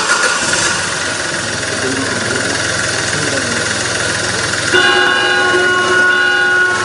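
A steady rushing, hissing noise, joined about two-thirds of the way in by a held horn-like chord of several steady tones.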